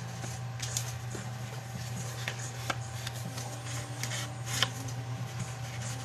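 Light taps and scuffs of an ink blending tool dabbed on an ink pad and rubbed along the edges of card stock, with the rustle of cards being handled, distressing the card edges with ink.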